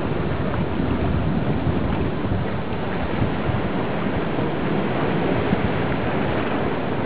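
Steady rushing of Atlantic surf on a rocky shore, one even wash of noise with no single wave standing out.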